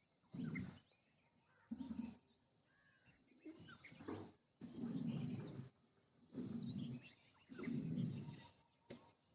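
Pigeons cooing: a run of about six low coos, each half a second to a second long, with sparrows chirping thinly over them.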